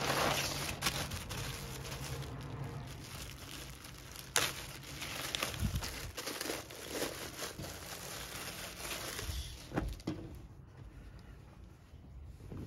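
A plastic shipping mailer, and then the clear plastic bag inside it, crinkling and rustling as they are handled and opened by hand. There is a sharp crackle about four seconds in, and the rustling quietens near the end.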